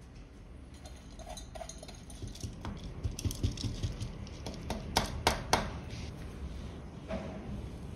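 Damp washed split dal pattering as it is tipped out of a steel mesh strainer onto a cotton towel, with three sharp clicks about five seconds in.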